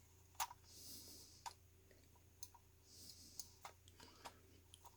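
Faint scattered clicks and two brief scratchy scrapes as the sticky two-layer feet are pried and peeled off the plastic underside of a Logitech G500s mouse.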